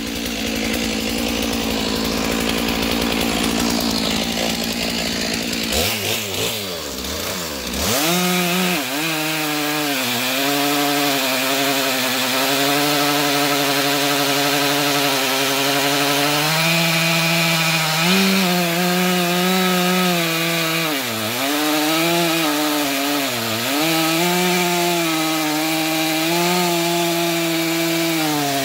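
A steady low rumble for about six seconds, then a Stihl 461 two-stroke chainsaw revs up and runs at full throttle cutting through a thick locust log. Its pitch dips repeatedly as the chain loads up in the cut.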